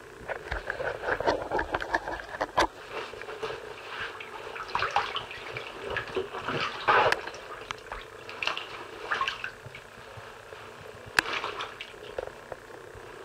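Bathwater sloshing and splashing in irregular swishes as a clothed body and wet padded jacket move about in a filled tub. Two sharp clicks are heard, one a couple of seconds in and one near the end.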